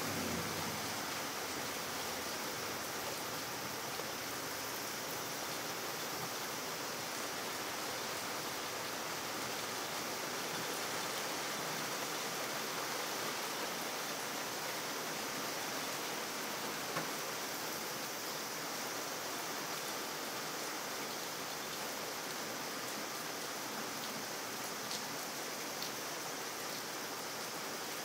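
Steady rain falling on wet pavement, an even continuous hiss, with a couple of faint ticks.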